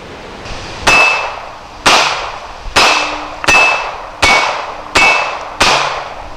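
Glock 42 .380 ACP pistol firing seven shots, roughly one every three-quarters of a second. Each shot is followed by a short ringing tone.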